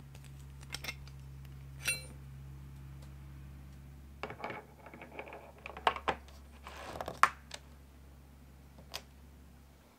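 Aluminum hex stock and a steel wrench clinking and clattering against a metal drill guide and its drill vise as the work is handled and clamped. There is one ringing clink about two seconds in, then a run of knocks and rattles in the middle, all over a steady low hum.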